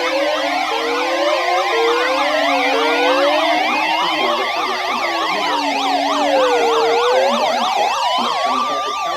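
Several sirens sounding together: slow wails rising and falling about every four seconds, layered over many rapid yelping sweeps. A lower warbling tone runs beneath them and breaks up partway through.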